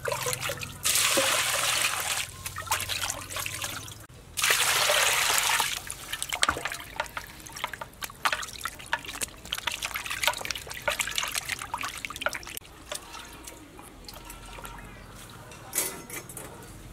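Water scooped with a plastic dipper from a clay water jar and poured out twice, each pour about a second and a half long. Then hands splash and slosh in a basin of water, washing a raw cow udder, with a brief splash near the end.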